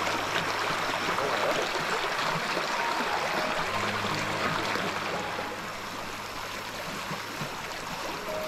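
Shallow stream running over rocks: a steady rush of water over the stones, a little quieter from about five seconds in.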